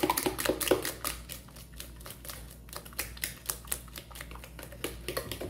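A fork stirring thick banana cake batter in a mixing bowl, with rapid, irregular clicks of the fork against the bowl.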